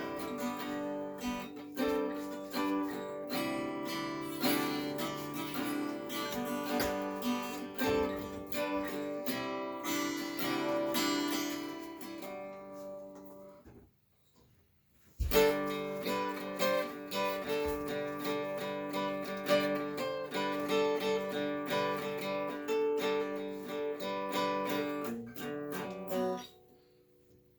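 Acoustic guitar being played without singing. It fades out about halfway through, stops for about a second, then starts again with a sharp strum and plays on until it stops shortly before the end.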